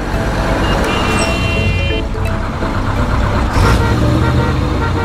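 Cartoon vehicle engine sound effect, a steady low engine run, with background music faintly beneath it.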